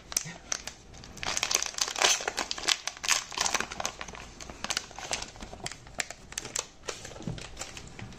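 Foil wrapper of a hockey card pack crinkling as it is pulled away from the cards, densest over the first few seconds, then thinning to scattered crackles.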